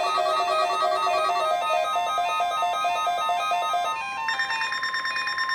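Electronic music of quick repeated keyboard-like notes at several pitches. About four seconds in, it gives way to a steady high tone and a buzzing, rapidly chopped tone.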